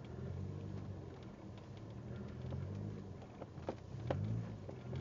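A vehicle engine running at low speed, its pitch stepping up and down, with a few sharp clicks a little after halfway.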